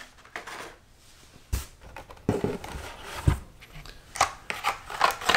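Hot Wheels cars on blister cards being handled and pulled from their cardboard case: plastic and card rustling and crinkling, with a few light knocks.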